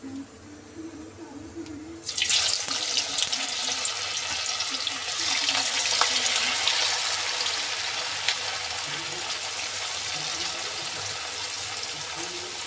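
Half-fried, masala-coated potato wedges go into hot oil about two seconds in, and the oil breaks at once into a loud, steady sizzle and crackle of deep-frying: the second fry of potato fries.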